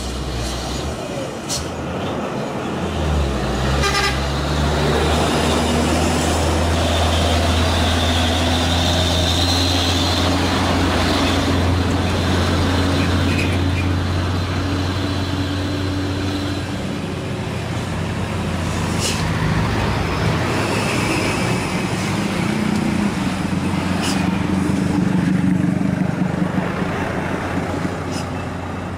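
Heavy diesel trucks grinding uphill under load, their engines running with a steady low drone, mixed with passing car and motorbike traffic and a vehicle horn toot.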